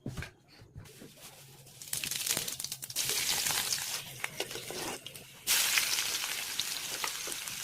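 Chow mein sizzling as it fries in a hot pan, with scattered clicks. The sizzle comes in sharply about three seconds in, drops back near five seconds, and returns louder just after.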